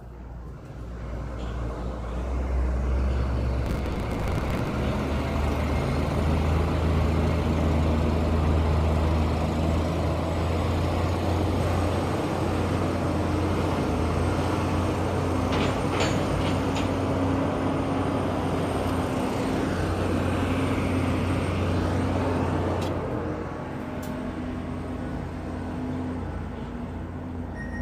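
A large engine running with a low, steady drone. It builds over the first few seconds, holds, then eases off near the end.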